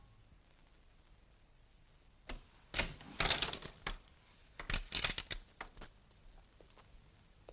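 A door's metal bolt and lock rattling and clicking as a hand works them from the other side of the door, in a string of sharp clicks and clatters starting about two seconds in and dying away near six seconds.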